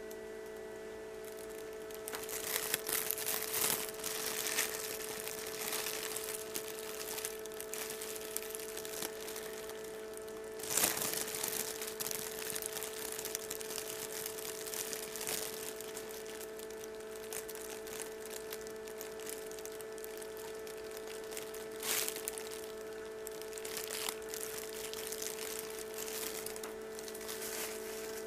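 Rustling, crinkling handling noise as a peacock egg is held and turned by hand over an egg candler, with a few louder scrapes along the way, over a steady electrical hum.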